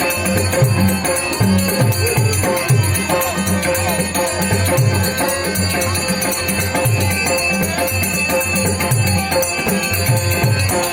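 Traditional Konkani Dashavatar accompaniment for a Ganesh stavan: a drum beats a steady rhythm of deep strokes that bend in pitch, over a held drone tone and jingling metal percussion such as small hand cymbals.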